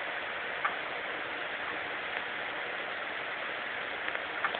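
Steady hiss of an IPL hair-removal machine running, with a few faint clicks from the handpiece held on the skin: one early, one about two seconds in, and a small cluster near the end.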